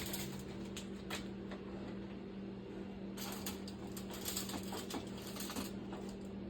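Faint scattered taps and light clatter as chopped hot dogs and tater tots are tipped into a foil-lined cake pan, over a steady low hum.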